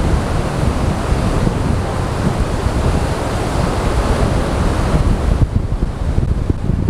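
Sea surf washing onto the beach, mixed with wind buffeting the microphone in a steady low rumble.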